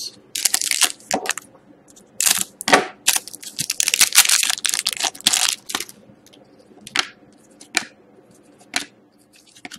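A foil trading-card pack crinkling and tearing as it is ripped open, in dense scratchy bursts for about six seconds, then a few light clicks as the stiff cards are handled.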